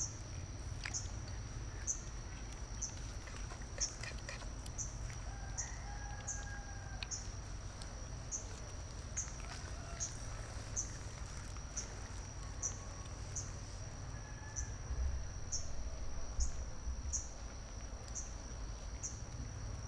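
A rooster crows faintly a few times in the distance. Under it runs a steady high-pitched insect drone that pulses with a short chirp about once a second.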